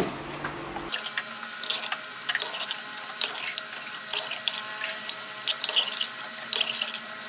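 A long metal ladle scooping parboiled potato slices out of hot water in a clay pot and tipping them into a stainless steel colander: water splashing and dripping, with irregular light clinks and taps.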